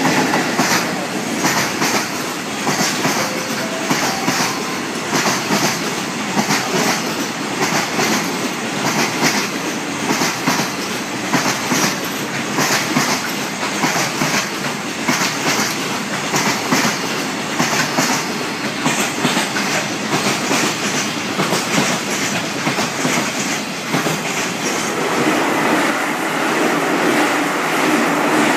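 Long container freight train passing, its wagons' wheels clattering rhythmically over the rail joints. Near the end a JR 313 series electric multiple unit comes past close by, and its smoother running noise takes over.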